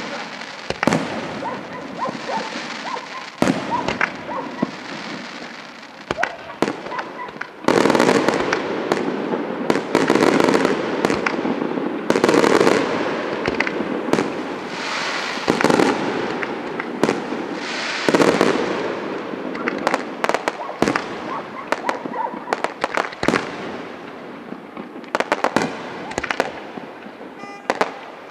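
Aerial firework shells bursting in an ongoing display: repeated sharp bangs, building to a dense, loud run of overlapping bursts through the middle, then thinning to scattered reports near the end.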